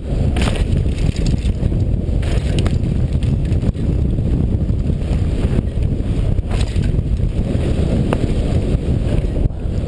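Wind buffeting the microphone of a helmet camera on a mountain bike rolling fast down a dirt trail, with the low rumble of knobby tyres on dirt and leaf litter. A few sharp clicks stand out along the way.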